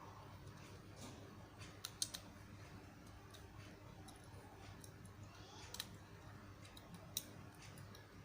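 Faint, scattered small clicks and taps, the loudest two close together about two seconds in and single ones near six and seven seconds, over a low steady hum.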